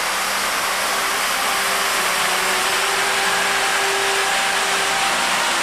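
Epcot Center fountain's water cascading down its stepped tiers and splashing, a steady rush, with a few faint held tones underneath.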